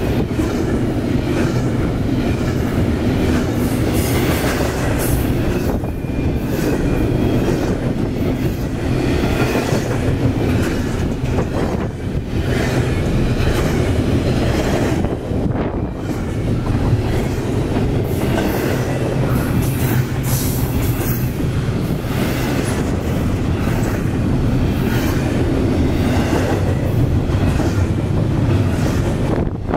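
CSX double-stack intermodal freight train's well cars rolling over a steel plate-girder bridge: a steady, loud rumble of wheels on rail with a rhythmic clickety-clack.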